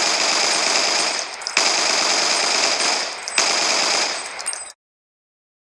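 AK-47 rifle (7.62×39 mm) firing fully automatic in three long bursts run back to back, each starting again sharply after a brief dip. The fire cuts off abruptly shortly before the end.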